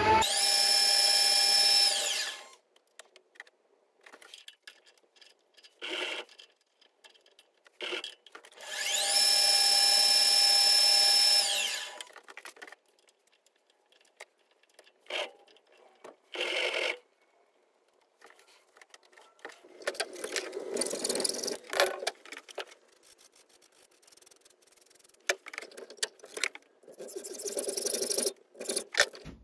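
Drill press running twice for a few seconds each, drilling a grub-screw hole into a steel eccentric sheave: a steady whine that rises as it spins up and falls away as it stops. Short scrapes and clicks follow as a tap is turned by hand in the hole, then hacksaw strokes in steel near the end.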